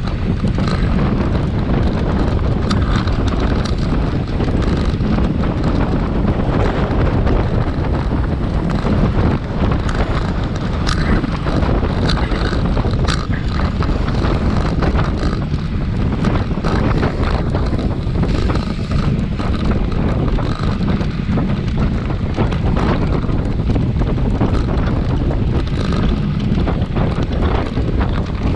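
Wind buffeting the microphone of a GoPro carried on a racing bicycle at speed: a loud, steady, low rush.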